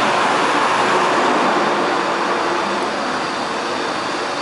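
Steady rushing noise of a ship's ventilation and machinery in a below-deck crew passageway, easing a little after about three seconds.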